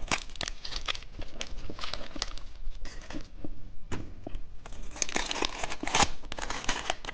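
Plastic candy packaging being handled and opened, a dense irregular crinkling and crackling that grows busier and louder near the end.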